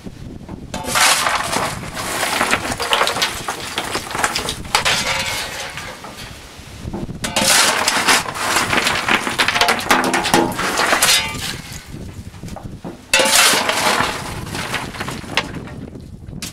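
Coal being shovelled by hand through the firehole of a Class 15F steam locomotive's cold firebox: a steel shovel scraping into coal and coal clattering onto the grate, in three bursts, about a second in, around seven seconds in and near the end. The coal is being spread as a thin bed over the grate before the fire is lit.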